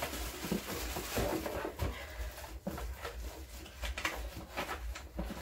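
Plastic wrapping crinkling and rustling as it is pulled off a gift, with several sharper crackles.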